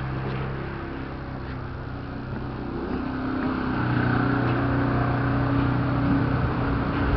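Off-road motorcycle engine running steadily at low revs, growing louder about three and a half seconds in.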